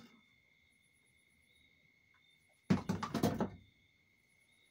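Hard parts being handled during a 4L60E transmission teardown: a single knock at the start, then about a second of clattering knocks nearly three seconds in.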